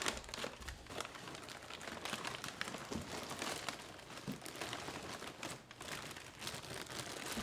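Paper and clear plastic wrapping crinkling and rustling as a skull cast is unwrapped by hand, with many small crackles.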